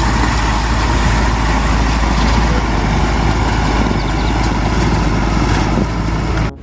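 Diesel engine of a Hino concrete mixer truck running as the truck drives slowly over a dirt road, a steady deep rumble that cuts off suddenly near the end.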